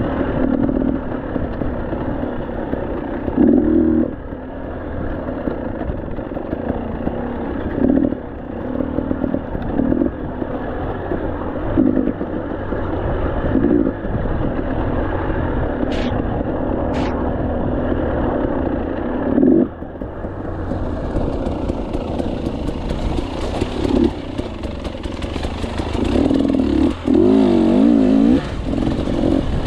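KTM 300 two-stroke enduro motorcycle engine being ridden on rough trail, the throttle blipped in short surges every couple of seconds, with some clatter from the bike. A longer wavering rev comes near the end.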